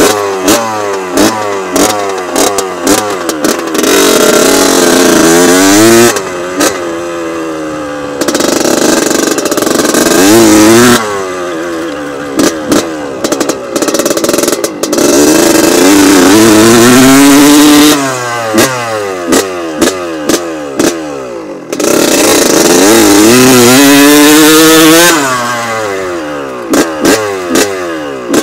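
Honda CR125 two-stroke motocross engine, just started and still cold, revved over and over. It gives sharp throttle blips and holds high revs for two to three seconds several times, crackling and popping as it drops back between them.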